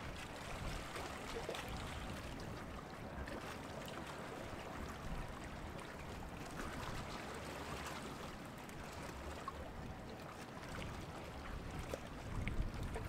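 Water washing and churning from a Great Lakes freighter passing close by, with a low rumble beneath it. A few louder low surges come near the end.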